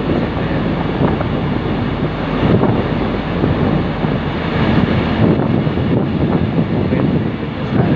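Wind buffeting the microphone over a steady rumble of road traffic.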